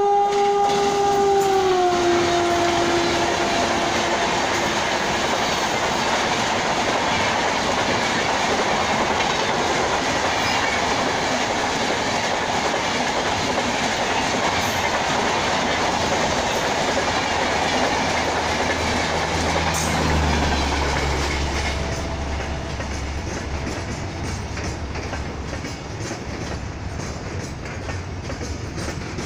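WAP4 electric locomotive's horn sounding as it passes, dropping in pitch about a second and a half in and fading out within a few seconds. Then the express train's coaches rush past with clickety-clack of wheels over rail joints, giving way about twenty seconds in to a quieter, lower rumble of a slowly moving freight train.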